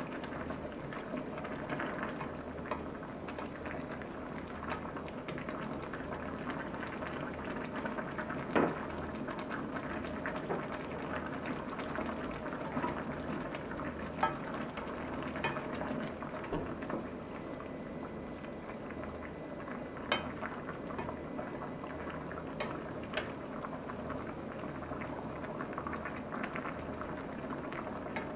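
Thick soy-based braising sauce bubbling steadily in a stainless steel pan over a portable gas burner, with a few sharp clicks of a wooden spoon and metal fork knocking the pan as the braised chicken and noodles are stirred, the loudest about a third of the way in.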